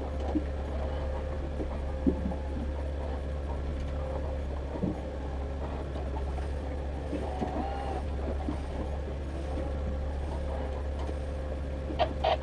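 Boat motor running steadily at trolling speed, a constant low drone with a steady hum over it. A few faint knocks, and a quick run of clicks near the end.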